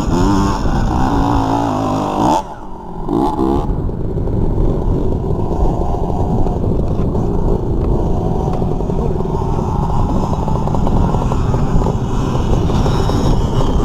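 Dirt bike engine running under throttle. The revs fall away about two and a half seconds in and climb back, then it runs on steadily.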